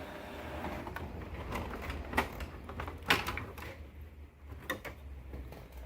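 HP Smart Tank 617 inkjet printer working quietly: a low steady hum with a few sharp clicks from its paper-feed mechanism. The printer is snagging a sheet that ends up jammed inside.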